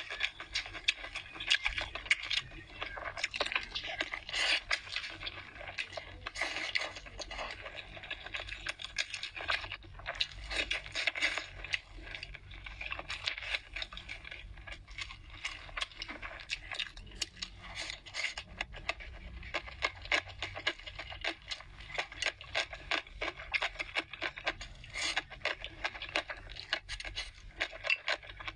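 Close-miked eating of a spicy hotpot: a steady stream of quick wet mouth clicks and chewing sounds, with chopsticks tapping and scraping against the bowls.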